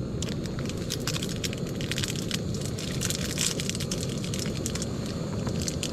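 Plastic wrapper of a fruit and nut snack bar crinkling and crackling as it is torn open and peeled back, the crackling thickest around the middle. Underneath is the steady low roar of a lit gas canister stove.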